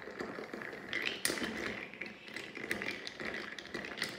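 Ice cubes clinking against a glass tumbler as a long metal bar spoon stirs a drink over ice: a steady run of light, irregular clicks, with a few sharper knocks about a second in and near the end.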